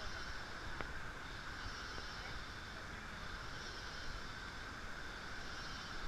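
Steady rainforest ambience: a continuous rushing noise under a high, buzzing drone that swells and fades every second or two, with a single sharp click about a second in.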